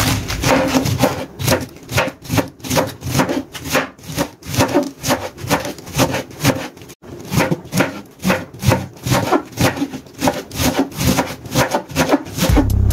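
Large kitchen knife shredding a head of cabbage on a wooden cutting board: quick, rhythmic slicing strokes, about three a second, each cutting through the leaves onto the board, with a brief pause about seven seconds in.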